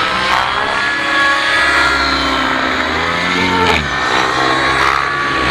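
Radio-controlled 3D aerobatic helicopter flying manoeuvres: its motor and rotor make a steady buzzing whine that keeps shifting in pitch, sliding down about three and a half seconds in.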